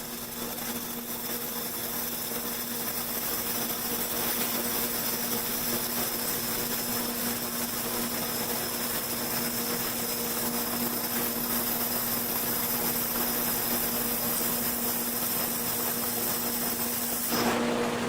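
Handheld fibre-laser welder in use on 2 mm stainless steel: a steady hiss over the welding machine's constant hum. The hiss cuts off with a short louder burst near the end, while the hum carries on.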